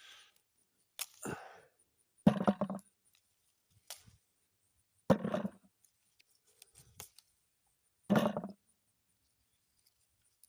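Pears being picked off the tree one by one: about six short knocks with rustling, a second or so apart.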